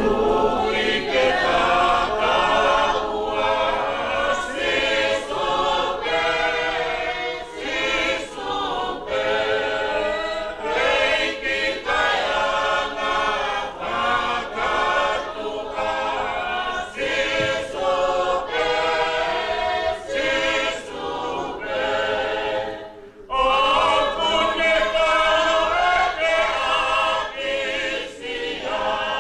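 Congregation singing a Tongan hymn together, unaccompanied, with a short break between phrases about three-quarters of the way through.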